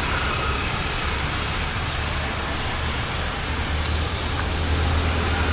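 Steady outdoor street background noise with a constant low rumble, like traffic or wind on the microphone. Two faint clicks come about four seconds in.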